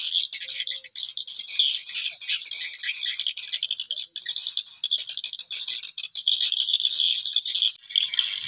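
Swiftlet calls: rapid, high-pitched chirping and clicking that keeps going without a break. It is a swiftlet lure call ('suara panggil') broadcast from a swiftlet house to attract the birds, heard together with the flock circling it.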